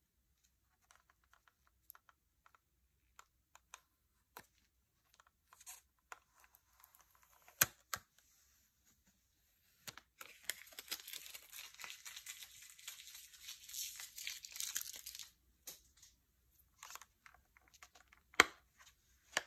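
Handling of a plastic Bug-A-Salt salt gun: quiet scattered clicks and taps, then two sharper clicks. About ten seconds in, a continuous peeling rasp of an adhesive strip pulled off the plastic lasts about five seconds, and a sharp plastic click comes near the end.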